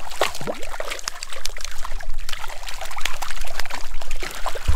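Hooked brook trout thrashing at the surface close by, a quick, irregular run of splashes.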